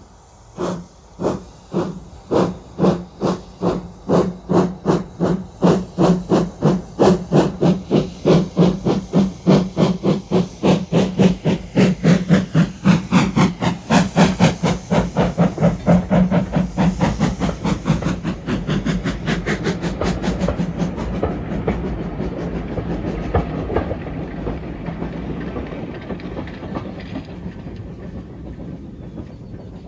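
Stroudley 0-6-0 tank steam locomotive pulling away with a train: sharp exhaust chuffs, slow at first and steadily quickening until they blur together. The beat then gives way to a steadier running sound that slowly fades as the train leaves.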